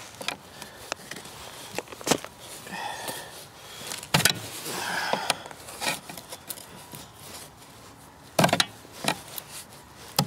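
Steel pry bar knocking and scraping against a bent snowmobile ski as it is levered straight: a scattering of sharp knocks, the loudest cluster near the end, with softer scraping between.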